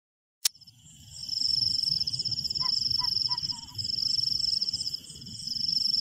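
A click, then a forest night ambience fades in: crickets trilling steadily and high-pitched over a low rumble. A few short animal calls come about halfway through.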